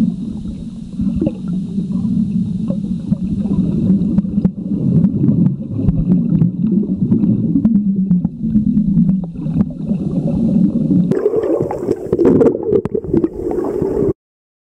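Muffled underwater rumble and gurgling, with scattered clicks, picked up by a camera held underwater while snorkelling. About 11 seconds in the sound turns higher and brighter, and it cuts off abruptly near the end.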